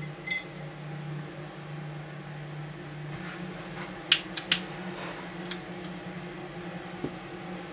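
Solder fume extractor fan running steadily; about three seconds in, its hum steps up slightly in pitch as it is set to fan speed 2. About a second later a smoke match is struck: two sharp strikes in quick succession, then a faint hiss as it flares.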